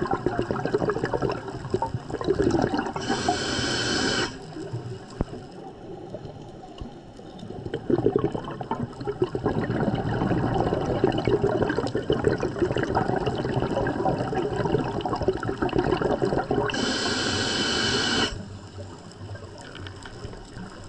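Scuba diver breathing through a regulator underwater: a gush of exhaled bubbles, a short hissing inhale about three seconds in, a few quiet seconds, then a long stream of bubbles from about eight seconds in, and a second hissing inhale near the end.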